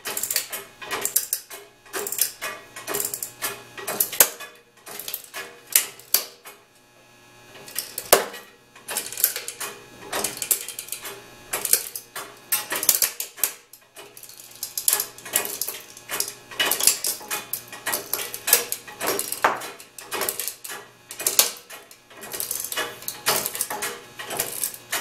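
Rapid, irregular clicking and clacking from an OTC 25-ton hydraulic shop press being worked as its ram crushes a die-cast metal toy, with one short pause about a third of the way in.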